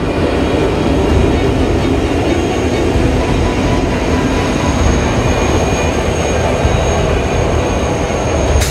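A train running on the rails: a loud, steady rumble of wheels and track noise, with a faint steady high whine above it. A sharp click comes near the end.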